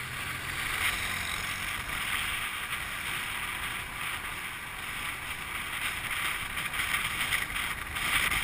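Steady rushing noise of riding on a motorcycle taxi through city traffic: wind on the microphone over road and engine noise, a little louder near the end.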